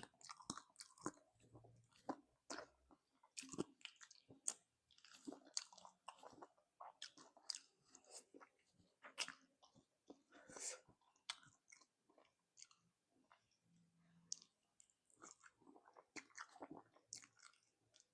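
Close-up mouth sounds of someone eating spicy chicken feet: faint, irregular wet smacks, sucking and chewing clicks, with small crunches.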